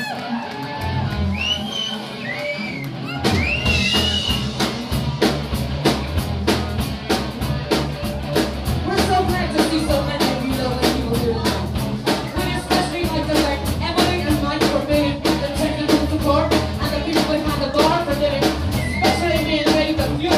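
Live rock band playing: sung vocals over bass and guitar, with the drum kit coming in about three seconds in and keeping a steady beat.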